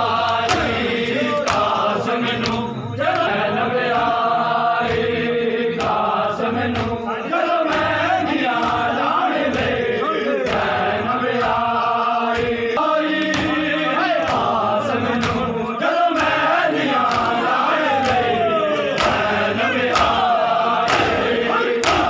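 A crowd of men chanting a Shia mourning lament (noha) while doing matam, sharp slaps of hands on bare chests keeping a steady beat under the voices.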